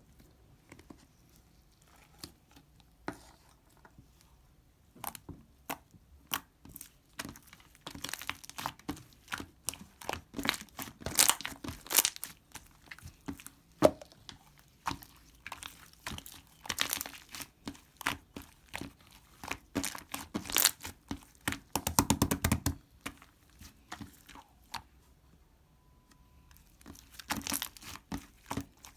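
Close-up crinkling and crackling from something being handled, in irregular clusters of sharp crackles. It starts a few seconds in, is busiest in the middle, pauses briefly late on and then picks up again.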